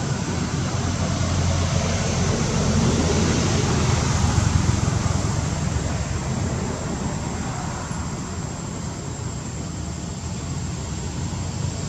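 Steady rumbling background noise with no distinct calls or knocks, easing slightly in the second half.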